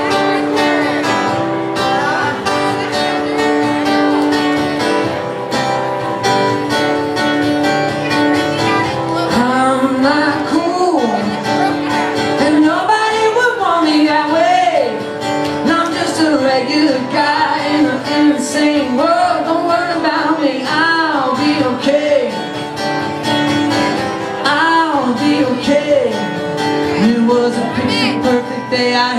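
A solo acoustic guitar played live, joined about nine seconds in by a man singing the song's opening verse.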